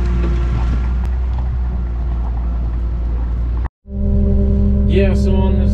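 Diesel engine of heavy farm machinery running steadily. It cuts out for an instant about three and a half seconds in, then runs on, heard from inside a wheel loader's cab.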